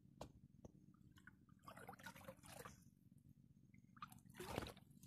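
Faint sloshing and dripping of river water around a person wading waist-deep, in two short stretches, about two seconds in and near the end, with a couple of light clicks near the start.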